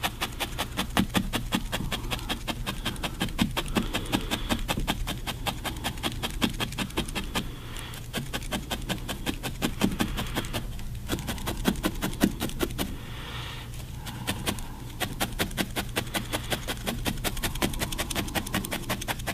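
A felting needle stabbing rapidly and repeatedly into wool fiber, several short pokes a second. It stops briefly a few times around the middle. This is the needle locking a small rolled piece of wool in place on a needle-felted figure.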